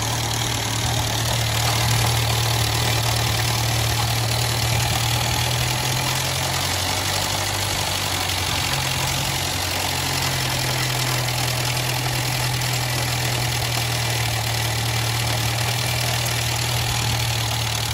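Škoda Felicia 1.3 MPI four-cylinder petrol engine idling steadily with a freshly replaced head gasket, its hum wavering briefly about halfway through.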